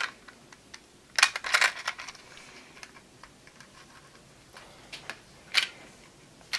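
A few sharp clicks and light rattles from small parts being handled on a workbench: a cluster about a second in, scattered faint ticks, then one louder click near the end.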